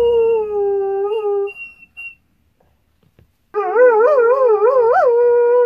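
A greyhound rooing: a long howl holding a steady pitch that fades out about a second and a half in, then, after a silent pause, a second howl that wavers up and down in pitch.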